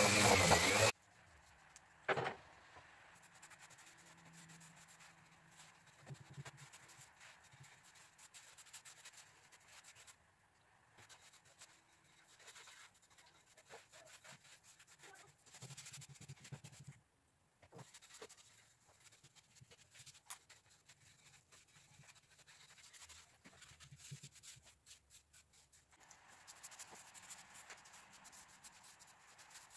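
Background music cuts off about a second in, followed by faint hand work on wood: soft rubbing strokes and small taps, with one sharper knock about two seconds in.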